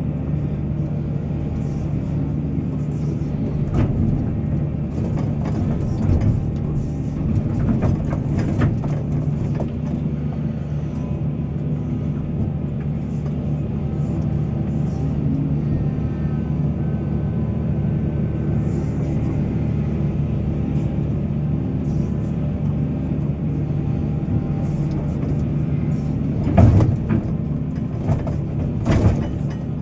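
Heavy mining excavator's diesel engine running steadily under load, with several short knocks and clatters. The two loudest knocks come near the end.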